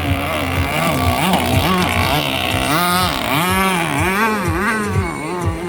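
Racing jet boat engine revving up and down over and over, its pitch rising and falling about twice a second.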